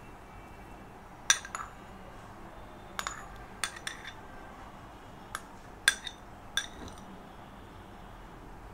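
Steel spoon clinking against glassware, a cut-glass bowl and a glass plate, as chopped coriander is tapped and scraped out of the bowl: about eight short, sharp clinks at irregular intervals.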